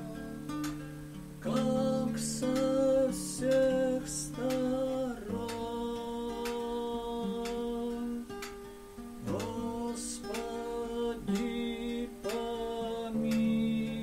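A man singing a slow melody, accompanying himself on a classical guitar with strummed chords.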